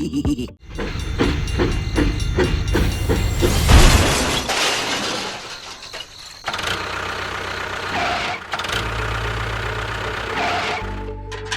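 An engine chugging in a quick rhythm, with a loud crash-like burst about four seconds in, then running more steadily, mixed with music.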